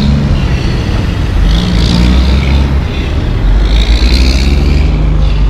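Heavy diesel engine of a tandem-axle dump truck pulling away under power, its revs rising and falling several times as it works through the gears.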